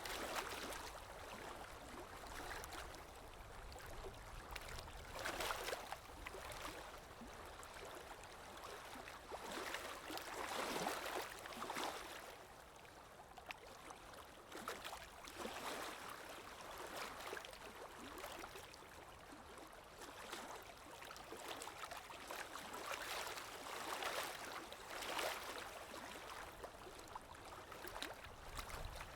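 Water lapping with wind: irregular swells of splashing water every few seconds over a steady low rumble of wind.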